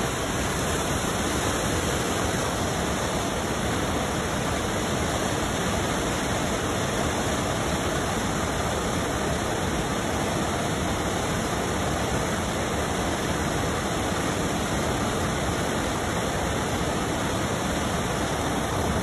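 Rushing water: a steady, even rush with no breaks or changes.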